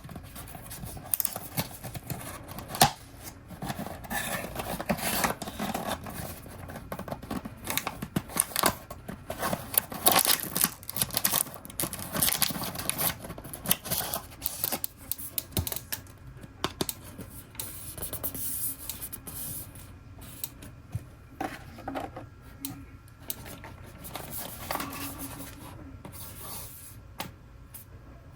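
Packaging of a blind-box toy being handled and opened by hand: irregular rustling, scratching and rubbing with many sharp clicks and taps.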